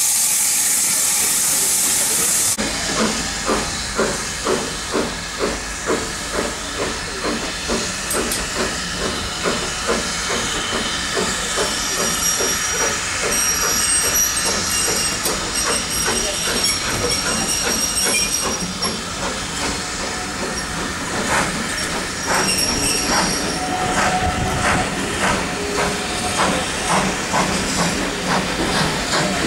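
Steam locomotive hissing steam for the first two seconds or so. Then comes a steady rhythm of exhaust chuffs, about two beats a second, as the train pulls slowly out of the station, heard from a carriage. Faint high-pitched squealing comes in briefly twice in the middle.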